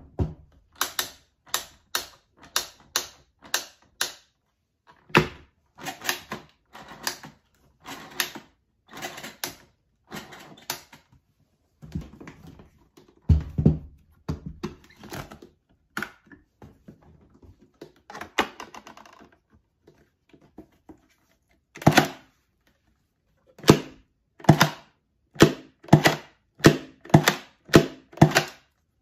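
Sharp mechanical clicks, snaps and clunks from a Graflex RB Series B 4x5 large-format SLR camera as its parts are worked by hand, with a few heavier thuds. Near the end the clicks come in a quick even run, about two a second.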